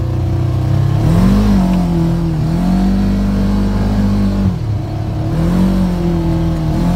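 Polaris RZR side-by-side's engine under throttle, heard from inside the cab: it revs up about a second in, holds, eases off, then revs up and eases off again near the end.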